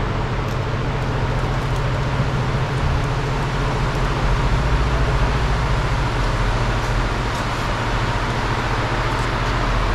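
Steady whirring and low hum of a large drum-type shop fan running.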